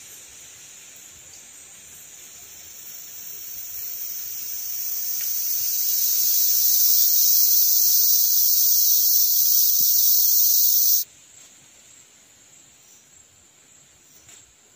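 Cicadas singing: a high, even buzz that swells over a few seconds, holds loud, then cuts off suddenly about eleven seconds in.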